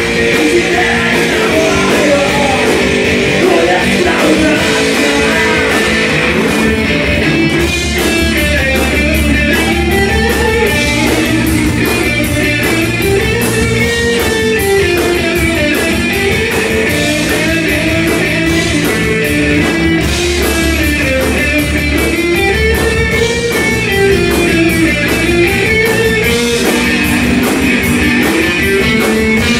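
Live rock band playing: electric guitars and drum kit, with a guitar line that rises and falls over and over.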